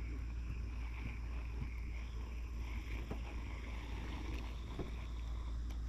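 Crocodile growling: a low, steady rumble, a warning display of dominance.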